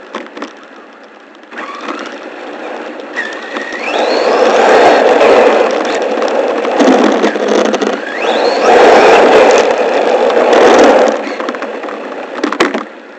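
Electric motor of a 1/10-scale RC rally car whining up in pitch twice as it accelerates on a 3S battery, over loud rushing noise as the car speeds along the asphalt; the noise eases off near the end, with a sharp click or two.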